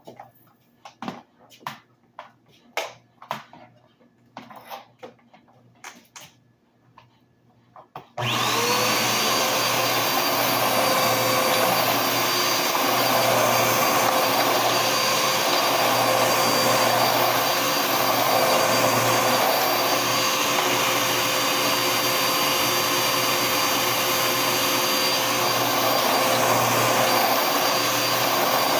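A series of light clicks and knocks, then about eight seconds in a Dirt Devil Power Max Pet vacuum cleaner switches on. Its motor spins up with a brief rising whine and runs steadily and loudly.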